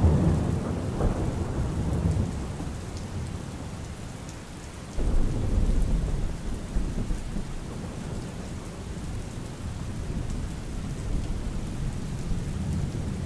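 Steady rain with rolling thunder. One rumble dies away over the first few seconds, and another breaks in suddenly about five seconds in.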